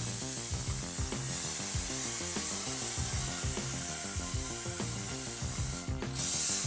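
Aerosol spray can of filler primer hissing steadily as it is sprayed. The spray breaks off briefly near the end.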